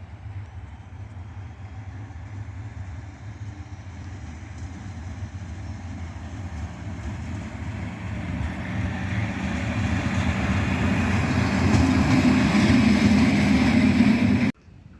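A train approaching and growing steadily louder, with a low hum and a steady higher tone, until the sound cuts off abruptly near the end.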